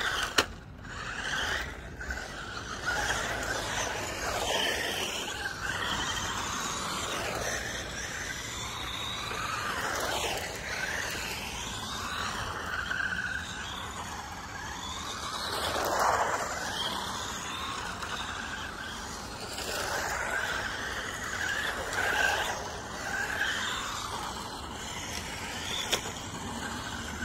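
Small 1/16-scale electric RC cars (SG1603 and SG1604) driving on tarmac, their motors whining up and down in pitch again and again as they speed up and slow down. A short knock sounds near the start.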